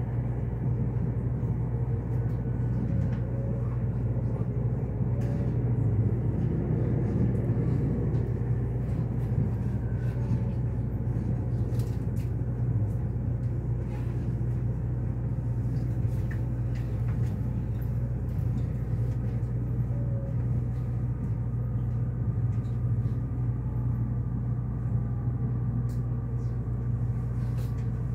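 Interior noise of the Resort Asunaro, an HB-E300 series hybrid train, running along the line, heard inside the passenger cabin: a steady low hum over an even rumble of wheels on rail, with scattered faint clicks.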